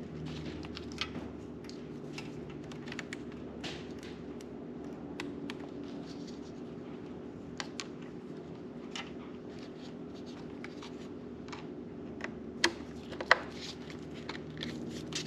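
Small clicks, taps and scrapes of hand work fitting wires to a motorcycle's battery terminals, with two louder sharp clicks a little before the end. A faint steady hum runs underneath.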